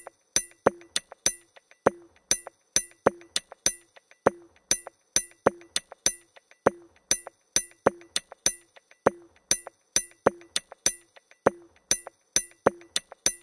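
Percussive music made of sharp clicking hits, about two or three a second at an uneven rhythm, many of them followed by a short low note.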